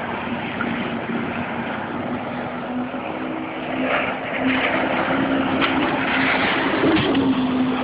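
Jet ski engine running at a steady pitch, over a constant rush of wind and water noise.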